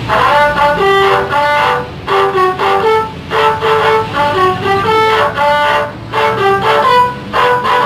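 Telolet horn, a bus's multi-trumpet musical horn, playing a tune of short reedy notes, several pitches at once, in phrases with brief gaps, over a low engine hum.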